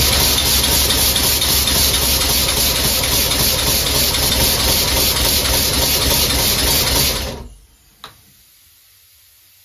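Home-built three-cylinder compressed-air engine running on shop air: a loud rush of exhausting air with a fast even pulse, about four beats a second. It dies away about seven and a half seconds in, followed by a single sharp click.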